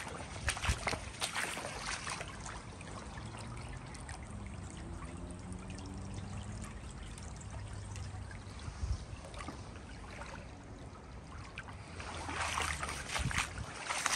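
Shallow water of a road ford running and trickling steadily, louder for a while near the end.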